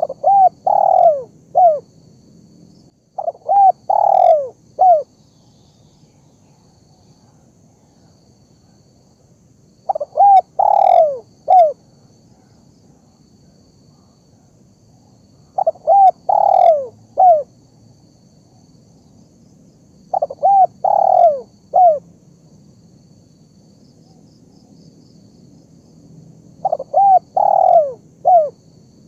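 Spotted dove (terkukur) cooing: six phrases of three or four notes each, with a few seconds of pause between phrases.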